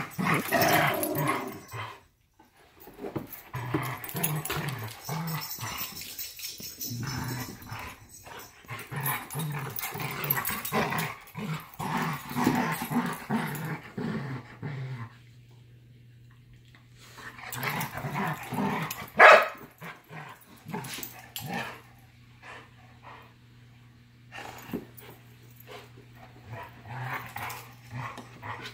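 A Labrador and a Giant Schnauzer play-fighting, growling in irregular bouts with short lulls. One loud bark comes about two-thirds of the way through.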